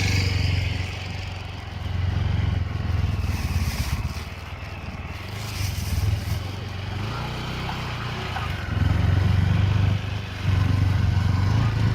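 Motorcycle engine running with a steady low hum, growing louder and easing back several times.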